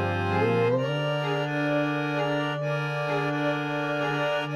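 Background music of held chords, with one melody note sliding down and back up in the first second.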